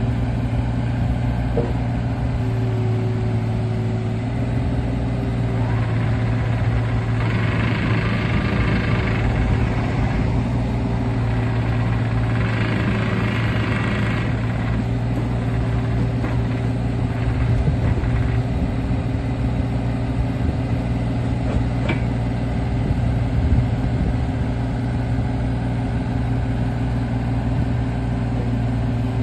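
Kubota U35-3 mini excavator's diesel engine running steadily. Two stretches of higher hissing, each a couple of seconds long, come about a quarter and about halfway through.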